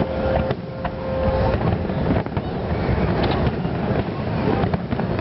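Fireworks going off: scattered bangs and crackles over a constant low rumble of wind buffeting the microphone.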